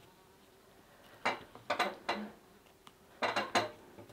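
A metal hand tool clicking and scraping in two short clusters of sharp clinks, one a little over a second in and another near the end.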